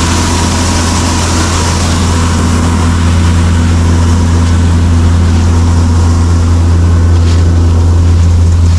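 Diesel engines of a tractor and combine harvester running steadily at close range, giving a deep, even drone with a hiss above it.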